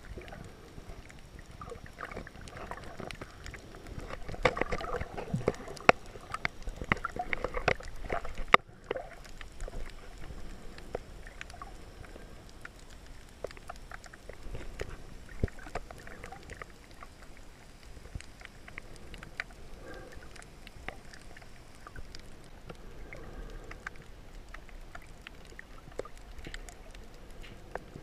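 Underwater sound picked up by a camera held below the surface as a snorkeler swims: a watery wash with many scattered sharp clicks and crackles. The wash swells louder about four to eight seconds in.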